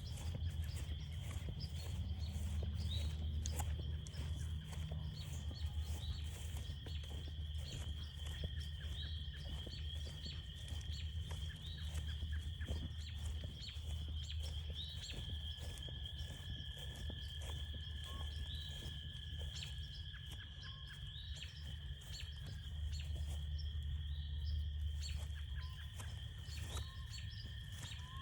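Frog chorus in full cry: a steady, high-pitched trilling drone, joined about halfway through by a second, lower trill. Frequent short clicks and crunches, like footsteps on the trail, run over it, with a low rumble underneath.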